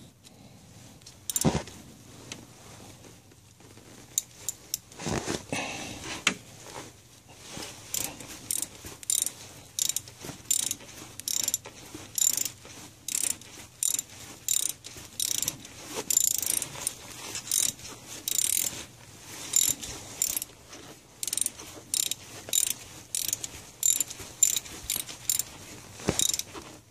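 Ratchet wrench worked in quick repeated strokes, about one and a half a second, clicking as it tightens the engine pulley's bolt. A few separate knocks come first, before the steady ratcheting starts.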